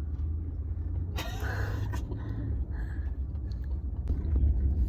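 A low, steady rumble, with a faint voice briefly about a second in.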